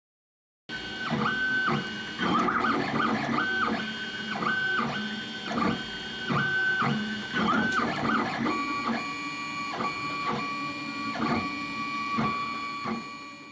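3D printer running, its stepper motors whining at steady pitches that switch abruptly every fraction of a second as the moves change. The sound starts just under a second in and shifts to a lower tone about two-thirds of the way through.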